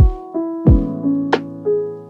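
Background music: a keyboard melody over a beat with a deep kick drum hitting about every two-thirds of a second.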